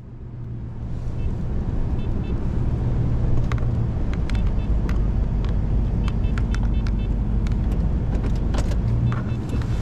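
Pickup truck driving on a dirt road: the engine pulls and the tyre and road noise grow louder over the first few seconds, then hold steady. Scattered light clicks and rattles run through it.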